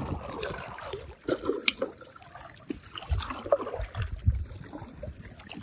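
Kayak paddle strokes: the blades dip and splash in the water, and water trickles off the paddle between strokes.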